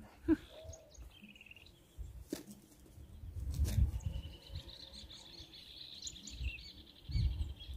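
Outdoor riverbank ambience with short high chirps early on. About halfway in, a steady, rapidly pulsing high trill sets in and keeps going. A few low rumbles sound, most strongly in the middle and near the end.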